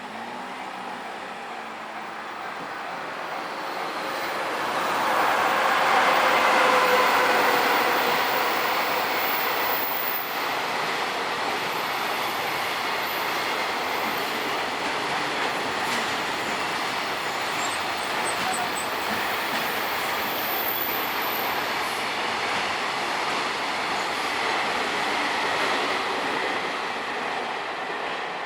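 Train passing on the railway line, its noise building over the first few seconds, loudest about six seconds in, then a steady rush of wheels on rails for some twenty seconds before dropping away near the end.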